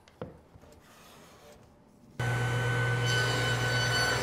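Faint hand-plane strokes shaving a board, then about two seconds in a table saw cuts in suddenly, running with a steady loud hum and whine as it cuts a groove in a wooden box side.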